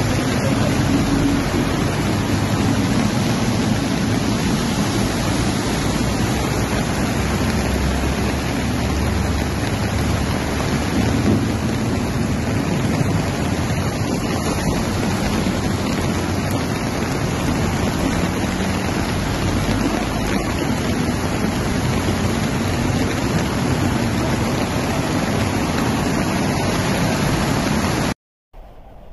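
Steady rushing noise of heavy rain and flowing floodwater on a street, with traffic moving through the water; it cuts off suddenly near the end.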